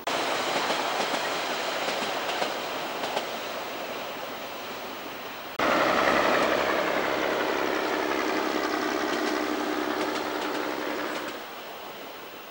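Commuter diesel railcar passing close by on the track, with engine noise and wheel clicks over the rail joints. About halfway in, an abrupt cut brings a louder, closer pass with a steady engine note that drops a little in pitch. The sound fades near the end.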